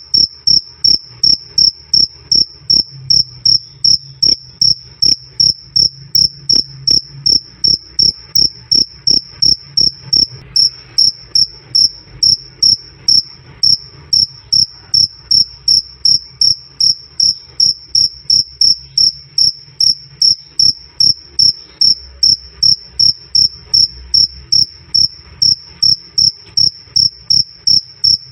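Male cricket chirping loudly and clearly: a steady, evenly spaced "krik krik" of short high chirps, about three a second, over a faint low background hum.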